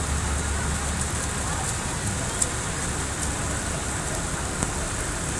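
Steady rain falling on a flooded road, an even hiss, with a few sharp taps.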